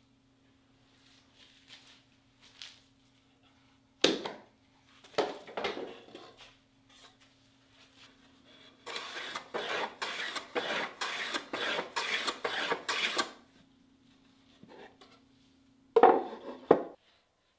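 Hand-tool work on a walnut piece at a workbench: a couple of wooden knocks, then a run of quick scraping strokes at about three a second for some four seconds, and a loud wooden knock near the end.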